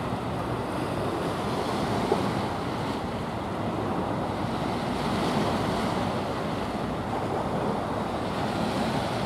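Steady rush of choppy sea water with wind buffeting the microphone, and one brief knock about two seconds in.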